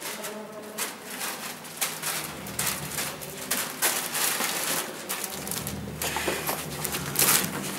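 Footsteps of two people walking on a hard floor, irregular steps getting a little louder as they come closer.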